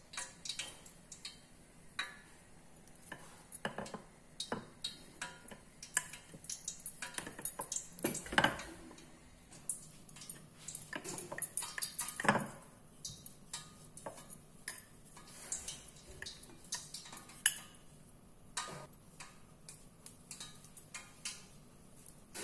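Irregular light taps and clicks of a wooden rolling pin and dough on a countertop as small dough balls are rolled out, with a couple of louder knocks near the middle.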